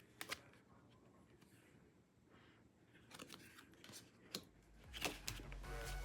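A few faint, sharp clicks and light rustles of album packaging being handled, a pair about the start and a cluster in the second half. Music begins to fade in near the end.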